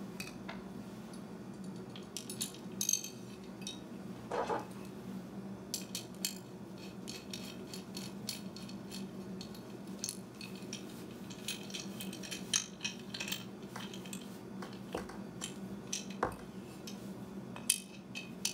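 Small metal clicks and clinks of a socket driver and a steel mounting bracket as a bolt is fitted and loosely tightened on an LED pod light, with a few louder knocks. A steady low hum runs underneath.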